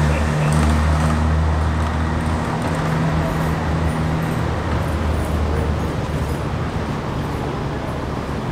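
Motorcycles riding slowly past. Their low engine hum is strong at first and fades away after about five seconds, leaving steady street noise.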